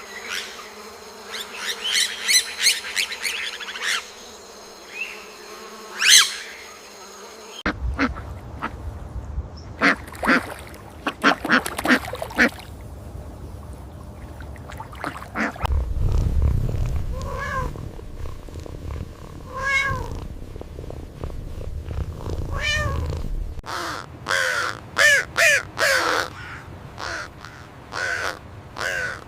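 A series of animal calls from several different recordings cut one after another, with the background changing abruptly about 8, 16 and 24 seconds in.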